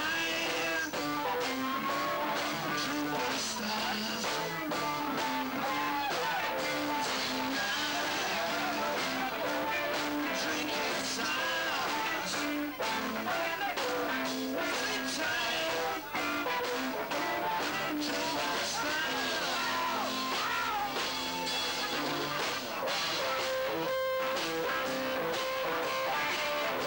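Live rock band playing, with electric guitars to the fore, including a semi-hollow electric guitar.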